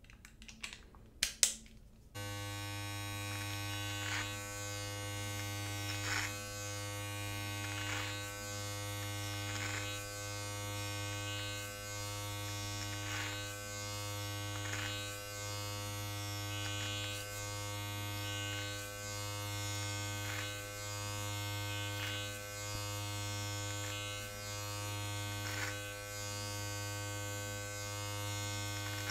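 A few sharp plastic clicks as a number three guard is snapped onto a battery body-hair trimmer. About two seconds in the trimmer switches on and runs with a steady electric hum, swelling and dipping every couple of seconds as it is drawn up through a beard.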